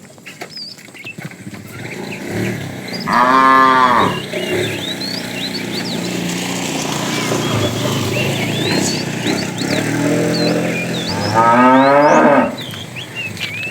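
Cattle mooing: two loud moos, one about three seconds in and the other about eleven seconds in, with fainter lowing between them.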